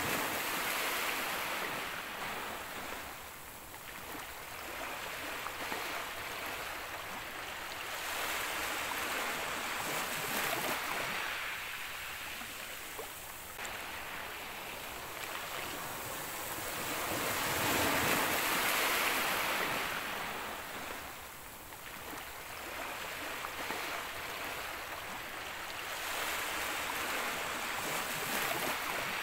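Ocean surf breaking on a beach, the wash swelling and fading about every eight or nine seconds, with the loudest wave about two-thirds of the way through.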